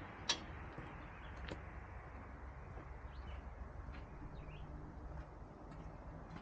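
Faint birds chirping over a low steady rumble, with one sharp clank just after the start.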